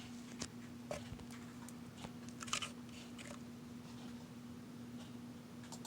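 Faint steady low hum with a few scattered small clicks and crackles, the loudest about two and a half seconds in.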